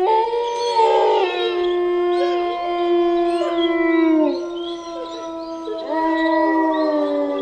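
Wolves howling in chorus: several long, held howls at different pitches overlapping, each dropping in pitch as it ends, with short higher sliding calls over them.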